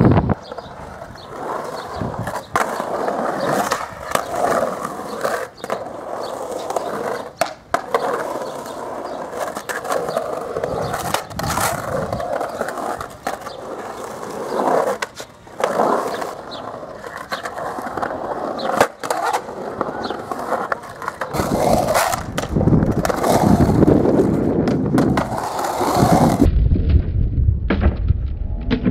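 Skateboard wheels rolling and carving on the concrete walls of a bowl, a continuous gritty rolling noise broken now and then by sharp clacks of the board and trucks hitting the coping. Near the end the rolling turns to a deeper rumble.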